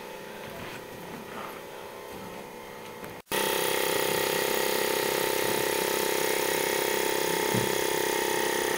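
Faint outdoor background, then, after a brief dropout about three seconds in, a loud steady engine-like drone at one unchanging pitch.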